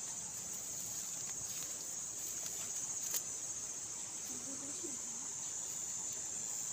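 Steady high-pitched chirring of field insects, crickets or the like, with a few faint clicks and rustles from hands working in the grass and one sharper click about three seconds in.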